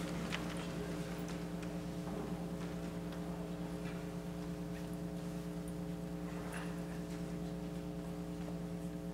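Quiet church room tone: a steady low hum with a few faint clicks and knocks.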